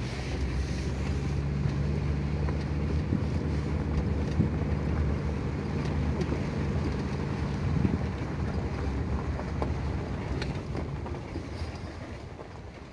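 Open safari jeep's engine running steadily, with wind buffeting the microphone; the engine's hum weakens after about eight seconds and the sound dies away toward the end.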